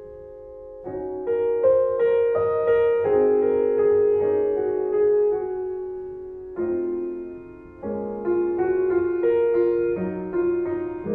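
Piano music: melody notes and chords struck one after another, each left to ring and fade.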